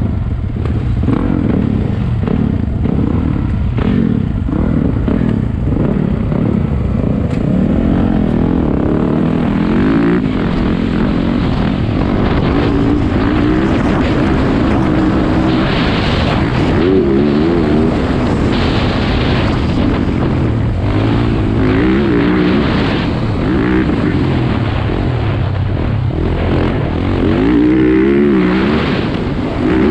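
Dirt bike engine revving up and falling back over and over as it is ridden around a motocross track, heard close from the rider's helmet camera with wind noise.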